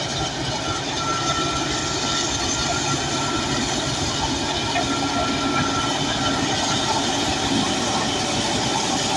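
Crawler bulldozer working: its diesel engine running steadily under load, with the continuous clank of its steel tracks and a thin squeal that comes and goes.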